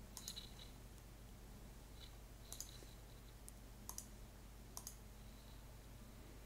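About half a dozen faint computer mouse clicks, spaced irregularly, over near-silent room tone.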